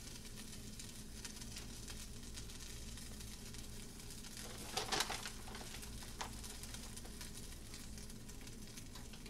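Faint steady background hum, with a short rustle about five seconds in as a plastic-gloved hand drops cubed chicken onto a cheese-covered tortilla in a stainless steel pan. A faint click follows about a second later.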